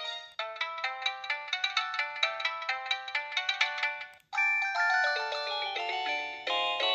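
Preloaded ringtone melodies on an LG LX5550 cell phone. A quick tune of rapid short notes plays for about four seconds and stops, then a different melody with longer, held notes begins.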